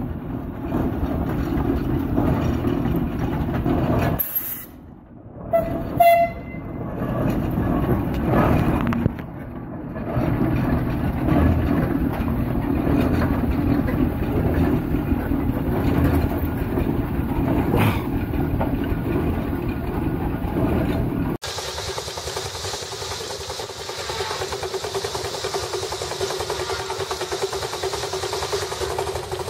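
A Case steam traction engine running and moving, with a brief whistle-like tone about six seconds in. About 21 seconds in, the sound cuts to a second Case steam engine with a steady hiss of steam over its running.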